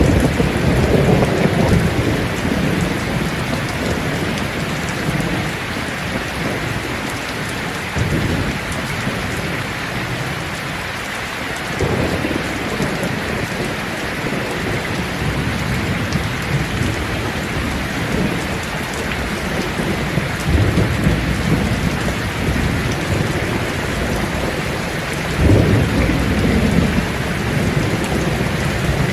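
Steady rain falling on leaves, with low rumbles of thunder that swell and fade several times; the loudest roll comes near the end.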